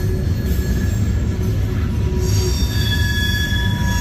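Freight train's covered hopper and tank cars rolling past, a steady heavy rumble of wheels on rail. Thin, high-pitched wheel squeal comes and goes over it, strongest in the second half.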